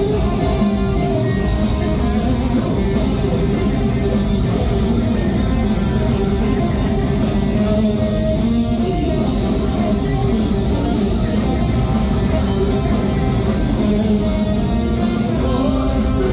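Heavy metal band playing live: distorted electric guitars with bass and drums, loud and steady, with dense cymbal hits over the top.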